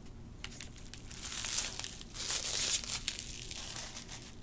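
Paper packaging rustling and crinkling under the hands as a tarot deck is unwrapped, in two spells, the second one the louder.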